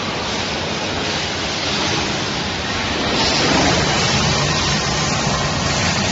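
Steady, loud rushing noise of industrial machinery with a low hum underneath, getting a little louder about three seconds in.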